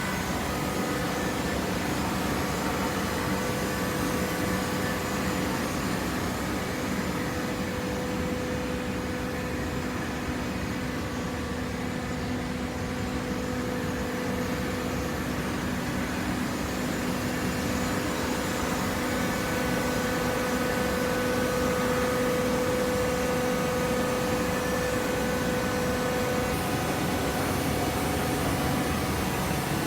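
Waste-paper baling machine running: a steady machine hum with a few fixed tones over a noisy background, getting slightly louder about two-thirds of the way through.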